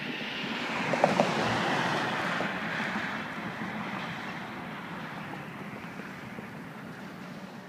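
Rumble of a freight train rolling away down the line, swelling for a couple of seconds and then slowly fading, with two short clanks about a second in.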